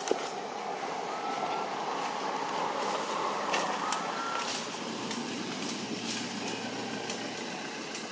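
A passing vehicle: a steady rushing noise that swells over the first few seconds and eases off, with two short high squeaks about a second and four seconds in.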